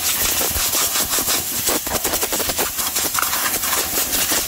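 Compressed-air blow gun blowing a loud, continuous hiss of air over a small wooden box to blow the sanding dust off it. The hiss wavers as the box is turned in the jet.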